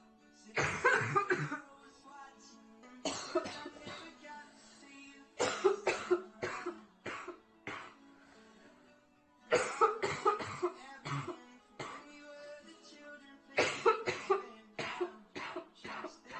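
A girl coughing in repeated fits, several harsh coughs in each, a few seconds apart, from a severe chest cold. Music plays faintly underneath.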